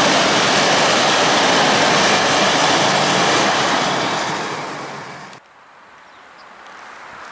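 Freight train of open coal wagons rolling past on the track, fading as it moves away. It cuts off suddenly about five seconds in, leaving faint outdoor background.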